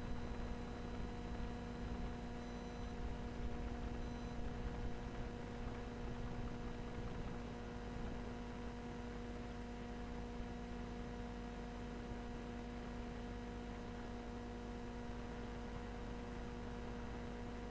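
Steady electrical hum, a low drone with fainter higher tones stacked above it, over quiet room noise. A faint high whine fades out a few seconds in.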